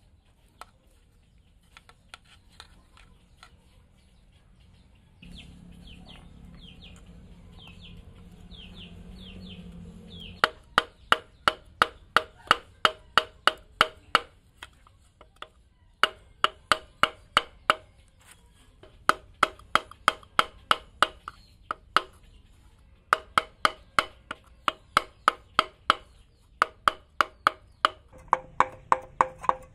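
Sharp knocks on a wooden stick tapping a ringed piston through a sheet-metal ring compressor into the cylinder bore of a D8 single-cylinder diesel engine. They come in quick runs of about four knocks a second with short pauses between, starting about ten seconds in. Before that there are only quieter scraping and clicking sounds.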